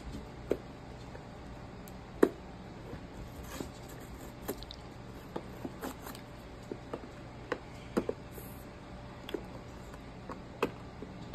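Stiff clear plastic toy packaging being handled and pulled at with the fingers: irregular small clicks and crackles, the sharpest about two seconds in.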